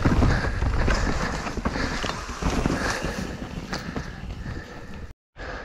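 Mountain bike riding down a rough trail: wind buffeting the microphone over the rattle and clatter of tyres and bike on rocks and roots, loudest at first and easing off, with a brief drop to silence near the end.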